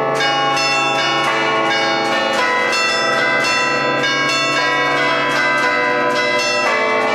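Set of twelve tower bells played from a wooden lever keyboard in the Bergamasque festive 'allegrezza' style: a fast, continuous tune of struck bells, several strikes a second, their ringing tones overlapping. The tune is a ringer's own composition modelled on brass-band music.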